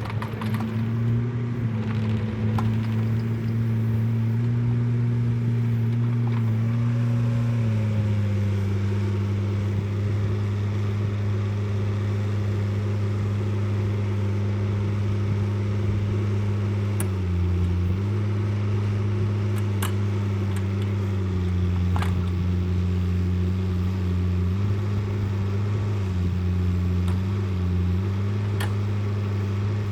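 An engine of a machine working a log pile runs steadily. Its pitch steps down about a quarter of the way in and dips briefly a few times later, with a few sharp knocks.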